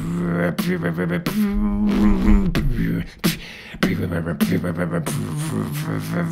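Beatboxing into a microphone: sharp vocal kick and snare clicks over a steady hummed low tone. About a second and a half in, a wavering hummed note runs for about a second and drops in pitch, followed by a brief quieter gap before the beat picks up again.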